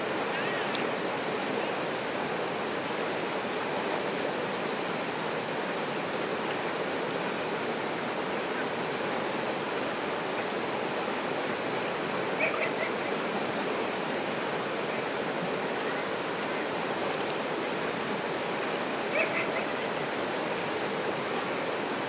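River rapids rushing over rocks in a steady, unbroken roar of water. Two brief faint high-pitched calls stand out, once about halfway through and once near the end.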